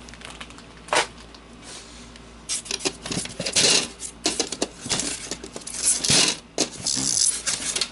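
Serger accessories being unpacked by hand: plastic packaging rustling and crinkling, with clicks and clinks of small hard plastic parts. There is one sharp click about a second in, and irregular rustling and clicking from a few seconds in.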